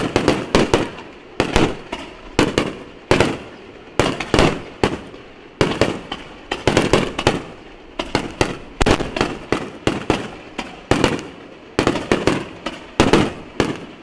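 Aerial fireworks shells bursting in quick succession: a long run of sharp bangs, a few every second, each trailing off in an echo.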